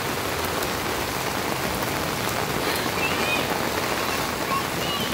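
Heavy rain falling steadily on outdoor paving and pool water.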